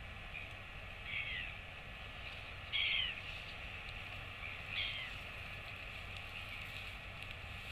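Three short bird calls, each falling in pitch, about two seconds apart, the second the loudest, over a steady background hiss.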